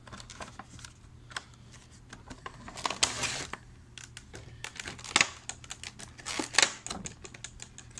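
Clear plastic packaging bag crinkling and rustling in the hands, with scattered small clicks and taps, as a vinyl Funko Pop figure is unwrapped. The loudest crinkles come about three, five and six and a half seconds in.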